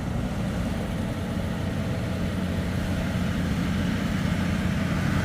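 An engine idling steadily with a low rumble, over a constant hiss.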